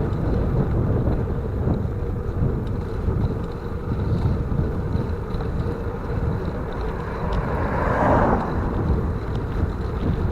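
Wind rumbling on the microphone of a camera riding along on a bicycle, a steady low noise with road noise underneath. About eight seconds in, a brief louder rushing swell passes, like a vehicle going by.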